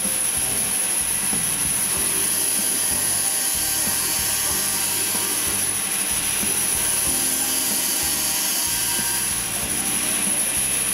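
Band saw running steadily, its blade cutting through a solid block of wood.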